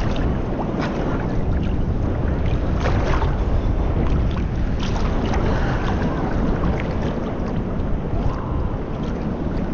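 Seawater sloshing and lapping against an action camera held at the surface, with a steady low rumble of water and wind on the microphone and scattered sharp little splashes.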